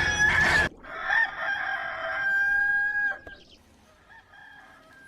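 Rooster crowing. A loud sound breaks off under a second in, then one long crow holds its pitch for about two seconds before it stops.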